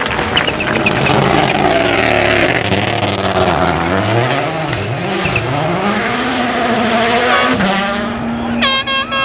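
Rally car engine at high revs, the pitch dropping and climbing again several times as the driver lifts off and gets back on the throttle, with a hiss of tyres. Near the end a horn starts sounding in short steady blasts.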